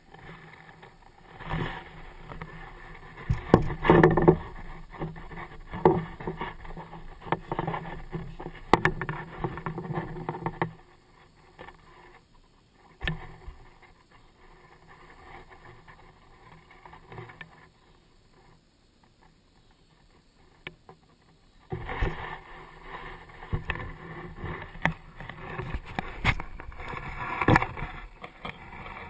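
Close handling noise of rustling, scraping and sharp knocks as hands work a hook out of a catfish lying in a mesh landing net, in two busy stretches with a quieter spell of several seconds between them.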